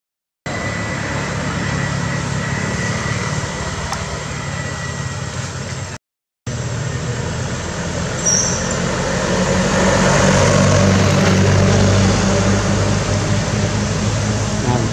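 Road traffic: a motor vehicle engine running with a steady low hum, swelling louder about two-thirds of the way through as traffic passes close by. The sound cuts out briefly twice.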